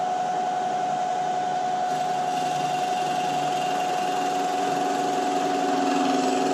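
Bridgeport EZ Trax milling machine spindle running steadily with a high whine as the end mill makes a light check pass around the top of an aluminium VW cylinder head's combustion chamber. A lower hum joins near the end.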